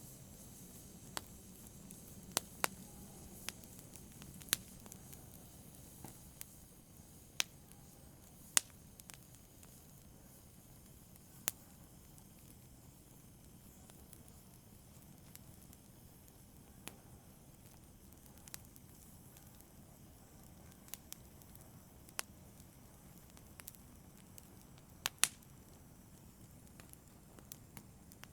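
Wood fire in a fireplace crackling: scattered sharp pops and snaps at irregular intervals over a faint steady hiss of the flames.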